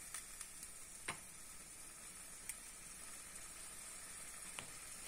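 Bitter gourd tamarind curry simmering in a pan on a gas burner: a faint sizzle with a few small pops.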